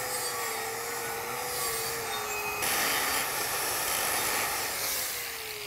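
DeWalt angle grinder grinding down a root-pass weld on a steel plate, its motor whining under load; the grinding gets louder about two and a half seconds in. Near the end the grinder is switched off and its whine falls in pitch as the wheel spins down.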